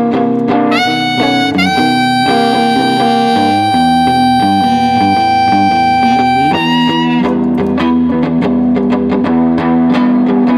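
Electric guitar and saxophone playing an instrumental passage. The saxophone slides up into one long held note over the guitar's chords and stops about seven seconds in, and the electric guitar carries on alone with rhythmic strummed chords.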